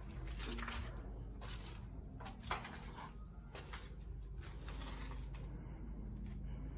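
Footsteps scuffing on a gritty bare concrete floor: irregular soft scrapes and clicks, a few a second, over a low steady rumble.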